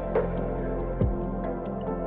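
Ambient background music: sustained, held synth tones with an occasional deep drum hit.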